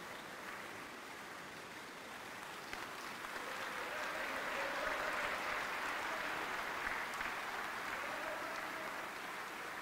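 Audience applauding, swelling a few seconds in and easing off near the end.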